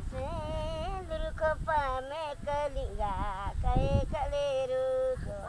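A woman singing unaccompanied. Her voice wavers on sustained notes and ends the phrase on a long held note shortly before the end.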